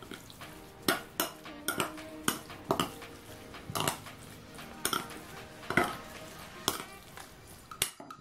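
Metal spoon scraping and clinking against a ceramic bowl while stirring chunky guacamole, with a sharp clink roughly once a second.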